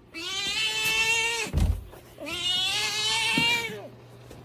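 A cat giving two long, drawn-out meows, each about one and a half seconds and dropping in pitch at the end, demanding its dinner.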